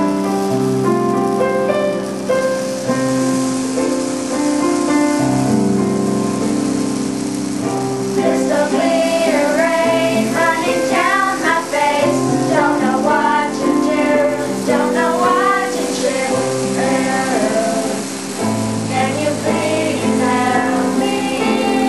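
Music from a quartet: sustained chords, with a wavering melody line coming in about eight seconds in.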